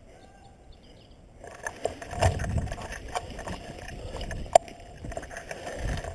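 Irregular knocks, thumps and rustling that start about a second and a half in, with one sharp crack about four and a half seconds in.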